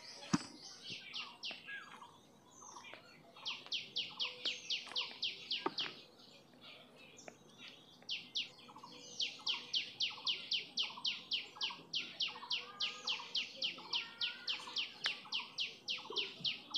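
A wild bird calling in long, fast runs of short, sharp high notes, about five a second. One run breaks off near the middle and another starts soon after, while a lower call repeats more slowly underneath.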